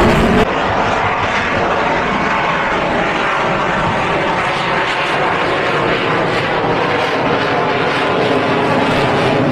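Jet aircraft engine noise, loud and steady. The sound changes slightly about half a second in.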